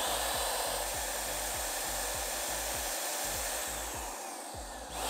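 Wagner W100 electric paint sprayer running with a steady airy whine: it spins up at the start, runs evenly, and winds down, falling in pitch, in the last second or so.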